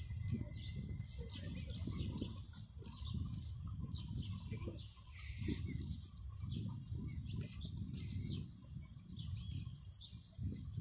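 Small birds chirping over and over, short high calls scattered throughout, over a low rumble that swells and fades.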